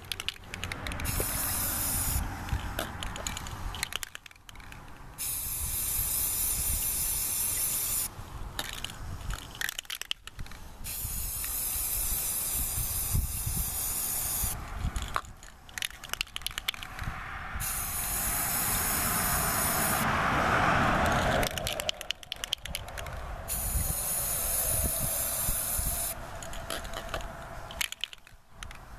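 Aerosol can of enamel spray paint hissing onto the water surface in about five bursts of a few seconds each, with short pauses and clicks between them. A low rumble runs underneath, and a louder swell of lower-pitched noise comes about two-thirds of the way through.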